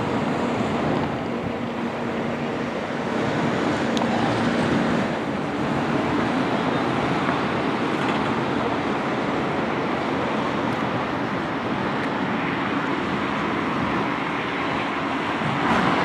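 Steady road traffic noise with wind on the microphone, and a Bombardier Flexity 2 tram approaching along the track, getting louder near the end.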